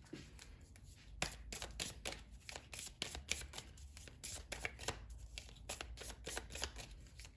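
Gaia Oracle cards being shuffled by hand: a quick, continuous run of light card clicks, starting about a second in.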